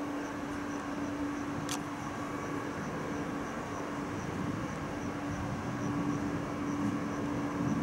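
Electric locomotive hauling an express train approaching slowly: a steady hum, with the rumble of wheels on rail growing louder over the last few seconds. A single sharp click about two seconds in, and faint high ticks repeating about three times a second.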